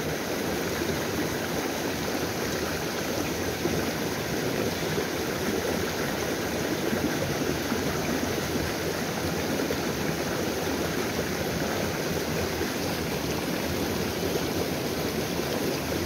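A small stream rushing and splashing steadily over rocks in a short cascade of whitewater.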